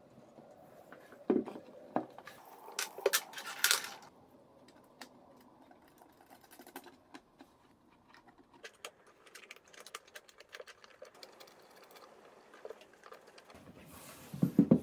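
Handling noise of a metal CNC controller box and its cables: clicks, knocks and small ticks as circular screw-on connectors and a power cord are plugged into its back panel, with a few louder knocks in the first few seconds and again near the end.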